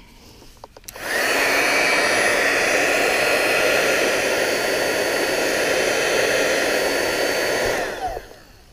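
Electric heat gun switched on about a second in, its fan and heater running with a steady whir, then switched off near the end, the fan winding down. It is shrinking heat-shrink tubing down over a wire splice.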